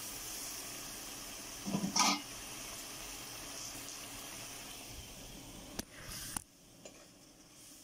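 Masala gravy sizzling and bubbling in hot ghee in a pot as fried potato koftas are added, with a brief clatter about two seconds in. The sizzle fades and cuts off about six seconds in.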